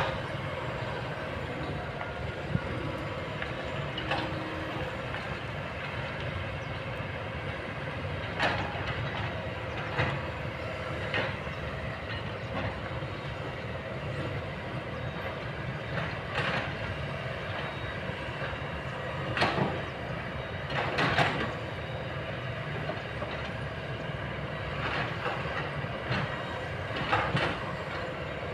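Kobelco long-boom excavator's diesel engine running steadily, with short metallic clanks and knocks from the working machine every few seconds.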